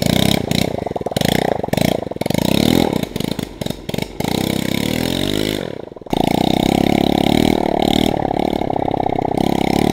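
Coolster 110 pit bike's small single-cylinder four-stroke engine revving hard under load through mud, uneven with brief dropouts and rises in pitch. After a sudden break about six seconds in it runs on at steadier high revs. It is breathing through a PVC snorkel tube that the riders say struggles to draw enough air, so the revs have to be kept high.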